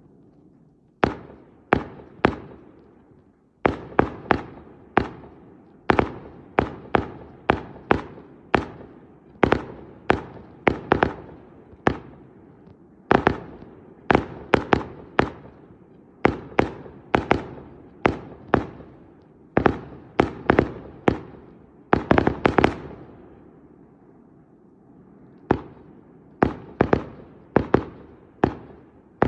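Fireworks display shells bursting overhead: a rapid, irregular string of sharp bangs, often several in quick succession, each trailing off in a rolling echo, with a brief lull about two-thirds of the way through.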